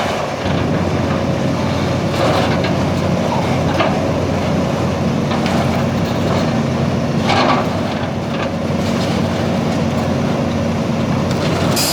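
Diesel engine of a mobile scrap crusher running steadily under load as it presses old air conditioners flat, with a few louder crunches of metal giving way.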